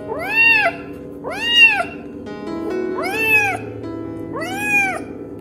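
Calico kitten meowing four times, each a short call that rises and then falls in pitch, over soft background music.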